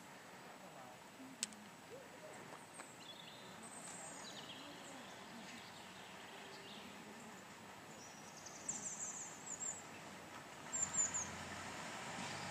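Small birds chirping over the faint engine of a Class 141 diesel railbus setting off and approaching, its engine growing louder over the last few seconds.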